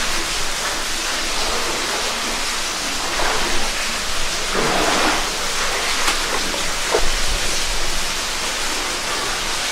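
Steady rush of falling water echoing in a rock cave, with a few louder surges about three, five and seven seconds in.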